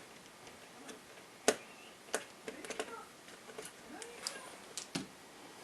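Irregular small clicks and taps of a screwdriver, screws and plastic parts being handled while a laptop screen panel is unscrewed and freed, with one sharper click about a second and a half in.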